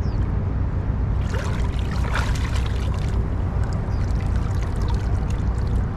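Water splashing and pouring, loudest from about one to three seconds in, over a steady low rumble.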